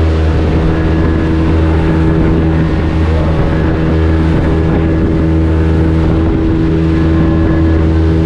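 A panga boat's outboard motor running steadily, a constant engine hum with wind and water noise over it.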